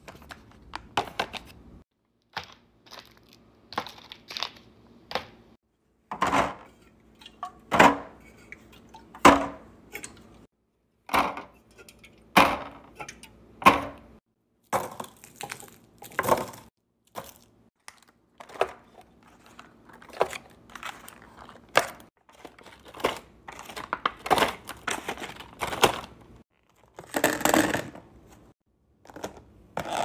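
Food packaging crinkling and plastic food containers being handled, set down and their lids pressed shut: a string of separate rustles and clacks.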